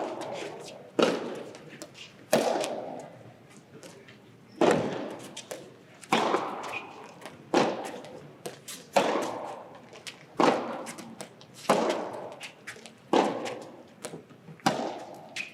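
A soft tennis rally: rackets strike the soft rubber ball with sharp pocks about every second and a half, around eleven shots in a row. Each strike echoes in a large hall.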